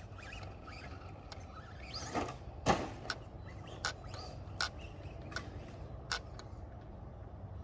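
Electric RC car driving over a dirt track some way off: a faint motor whine and a string of sharp clicks and knocks as it runs and bounces over the rough ground. The loudest knock comes just under three seconds in.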